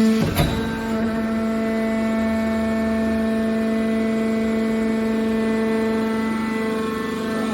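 Hydraulic metal baler running, its hydraulic pump giving a steady whine, with one sharp metallic knock about half a second in.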